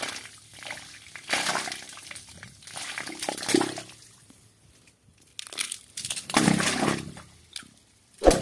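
Soil clods dropped down a plastic borewell casing, splashing into the water a short way down with a hollow ring up the pipe. There are several splashes a couple of seconds apart and a sharp knock near the end. The short drop shows the water standing high in the bore.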